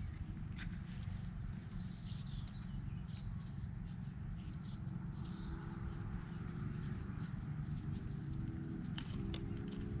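Light clicks and taps of hands handling a small RC helicopter's plastic rotor blades and rotor head, over a steady low rumble. From about halfway a faint hum comes in, its pitch slowly rising and getting a little louder near the end.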